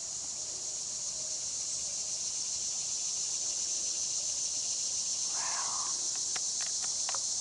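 Steady chorus of insects, an even high-pitched drone with no let-up. A short muffled sound comes about five seconds in, followed by a few light clicks near the end.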